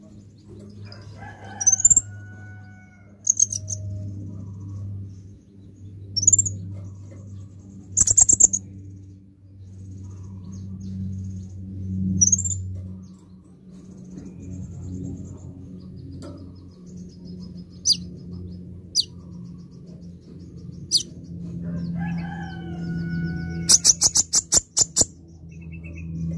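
Male copper-throated sunbird (kolibri ninja) giving short, sharp, high chirps every few seconds, with a quick run of chirps near the end. A low steady hum runs underneath.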